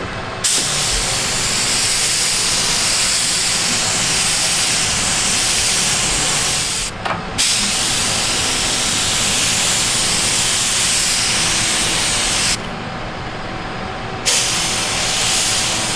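Gravity-feed air spray gun hissing as it sprays gelcoat, in three long bursts: the trigger is released briefly about seven seconds in, and again for nearly two seconds a little after twelve seconds.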